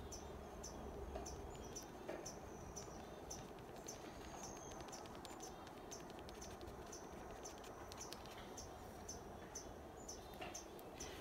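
Faint outdoor background with a short, high chirp repeating evenly, about two to three times a second.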